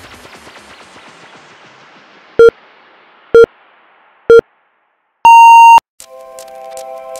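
Interval timer countdown: three short, identical lower beeps about a second apart, then one longer, higher beep marking the start of the next interval. Background music fades out before the beeps, and new music starts just after the long beep.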